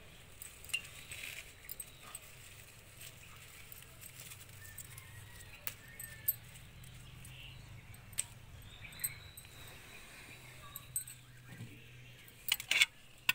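Handheld scissors snipping flower stems: a handful of short, sharp clicks spaced a second or more apart, then a quick run of louder clicks and clinks near the end.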